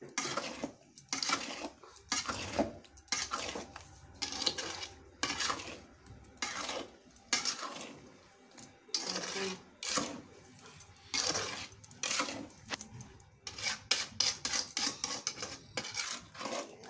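Metal spoon scraping and stirring mango pieces in a steel pan, in repeated strokes about one or two a second, as the mango pickle is stirred continuously over the fire to melt the sugar.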